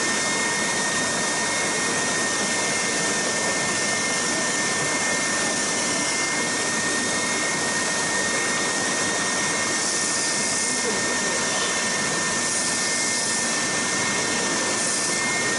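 Triton TSPST450 450 W oscillating spindle and belt sander running steadily, with a constant high whine, while a wood edge is sanded on it.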